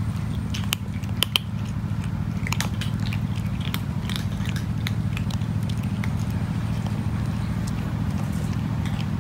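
A cat crunching dry kibble, with irregular sharp crunches as it bites, over a steady low hum.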